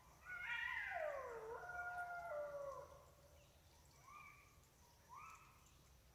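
An animal calling: one long call that glides down in pitch over about two and a half seconds, then two short rising calls about a second apart.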